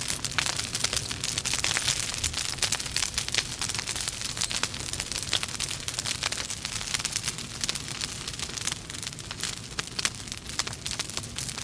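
Wood fire burning in a fireplace, crackling continuously with many irregular sharp pops over a soft hiss.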